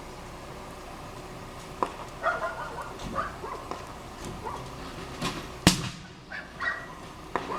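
Dogs barking in short bursts, with a few sharp pops and one loud, sharp bang about two-thirds of the way through.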